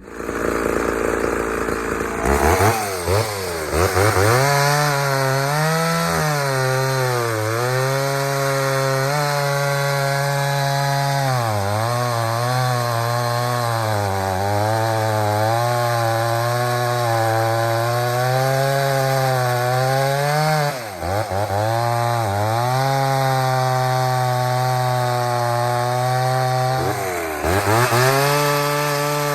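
Two-stroke chainsaw starting about two seconds in, then run hard, with its pitch swinging up and down as it cuts wood with a dull chain. The owner afterwards judges this saw to be running lean.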